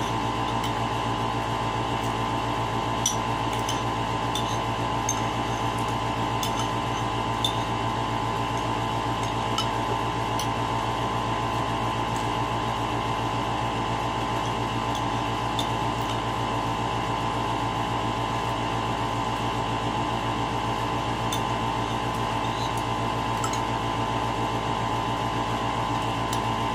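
A steady mechanical hum from a running appliance in a small room, made of several fixed tones. Faint light clinks of a metal spoon against a ceramic bowl come now and then.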